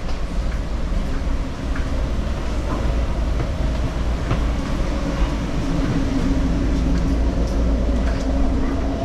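Interior ride noise of a Caltrain Stadler KISS electric multiple-unit train in motion: a steady low rumble of the car running on the rails, with a low steady hum that comes up about halfway through and a few light clicks.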